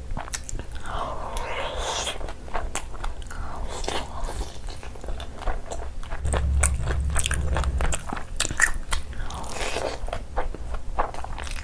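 Close-miked eating: wet chewing and biting with many sharp mouth clicks and smacks as a person eats curried chicken and rice by hand. A low rumble runs for about two seconds midway.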